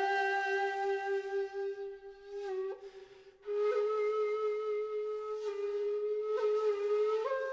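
Solo shakuhachi playing slow, long-held notes, stepping between close pitches with small bends, with a pause for breath about three seconds in.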